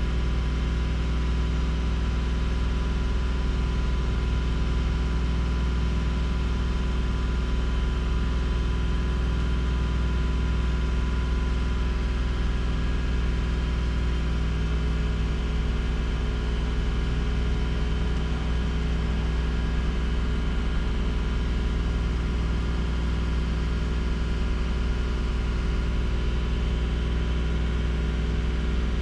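Subaru Outback's 3.0-litre flat-six engine idling steadily at operating temperature, heard from inside the car, while the cooling system is bled after a coolant change and the thermostat cycles open and closed.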